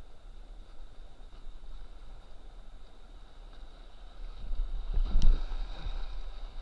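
Rushing whitewater on a river rapid heard close to the water, with a low rumble of water and wind buffeting the microphone. The rush grows louder about four and a half seconds in, with a short sharp tick just after five seconds.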